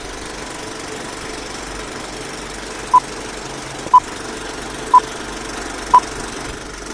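Old-film countdown leader sound effect: a steady projector-style rattle and hiss, with a short high beep once each second from about three seconds in.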